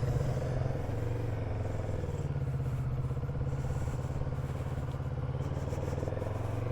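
Kawasaki Z650RS parallel-twin engine running steadily at cruising speed, with wind noise over the top.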